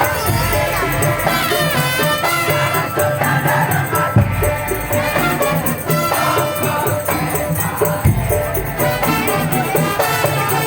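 Loud music with a steady beat, bass and shaken percussion.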